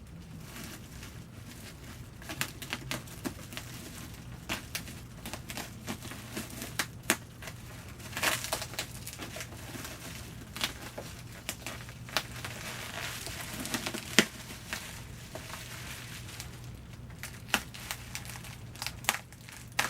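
Packaging being handled and unwrapped by hand: irregular crinkling, rustling and sharp crackles of wrapping, with a few louder crackles about eight seconds in and again near fourteen seconds.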